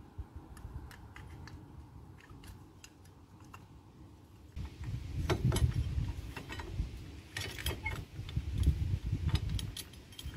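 Light metallic clicks and clinks as new brake pads are worked into a Polaris RZR's front brake caliper bracket, with duller knocks and handling noise from about halfway.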